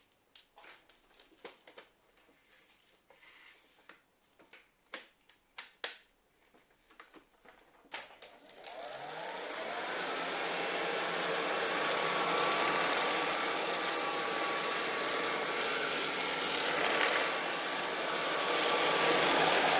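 Handling clicks and knocks for about the first eight seconds, then a Philips FC6726/01 cordless vacuum cleaner is switched on: its motor spins up with a brief rising tone and runs steadily with a faint whine.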